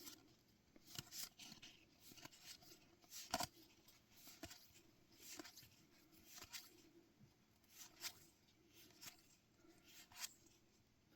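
Faint rustles and soft flicks of a trading-card booster pack and its cards being handled: the pack opened and the cards slid one behind another, a short sound about every second.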